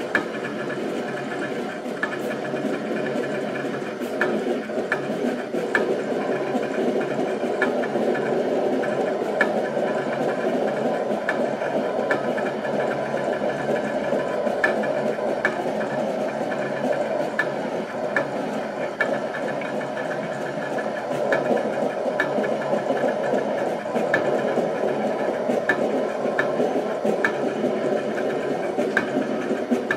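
Portable 15-inch cutting plotter cutting a rubber sandblast stencil: its motors whir steadily as the head and rollers move the material, with frequent short clicks throughout.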